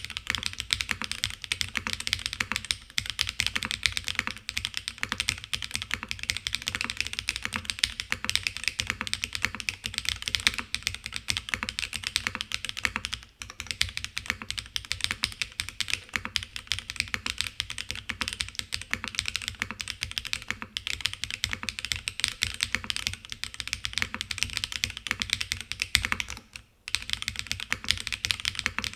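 Fast, continuous typing on a FLO-AT custom mechanical keyboard with Cera R3 switches, DCS Intro Beige keycaps, a full aluminium plate, PCB gasket mount and no foam dampening. The keystrokes run as a dense stream of clicks, with a brief pause about halfway through and another near the end.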